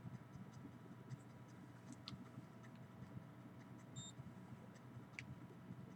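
Near silence: faint room tone with scattered small clicks and one short, high electronic beep about four seconds in.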